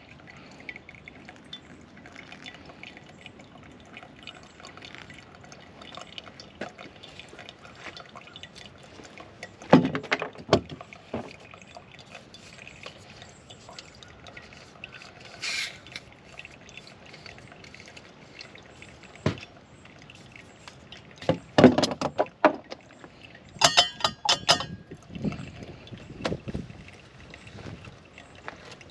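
Liquid pouring and dripping, with scattered knocks and a few bright metallic clinks from camp cookware and gear being handled; the loudest knocks come about ten seconds in and in a cluster about two-thirds of the way through.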